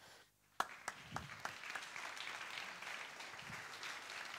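Audience applause: clapping starts about half a second in and carries on steadily.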